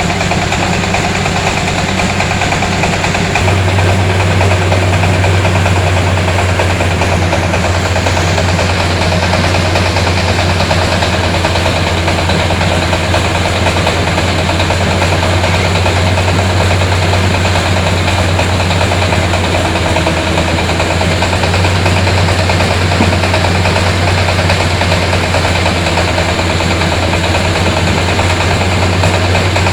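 Engine of a three-wheeled mobile rice huller running steadily under a constant load, with a strong low hum that shifts and grows slightly louder about three and a half seconds in.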